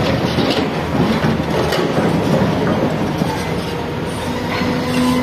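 Excavator at work: continuous engine and machinery noise with scattered metallic clanks and squeals, and a steady tone coming in about three seconds in.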